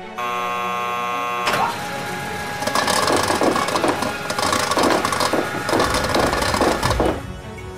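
A steady buzzer-like tone for about a second, then a long clattering rattle: plastic ping-pong balls tumbling down through a clear plastic tube and bouncing onto cardboard.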